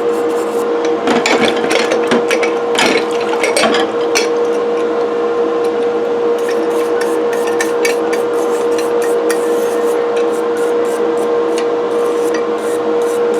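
Motor-driven wire wheel running with a steady whine while cast iron coffee grinder parts are held against it, scraping off old grease and coffee residue. The scratching is heaviest in the first few seconds, then turns to lighter, intermittent scratching.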